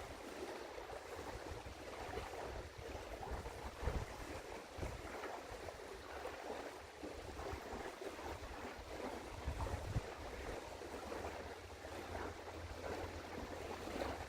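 Wind buffeting an outdoor microphone, with a steady rushing noise and a couple of stronger low gusts.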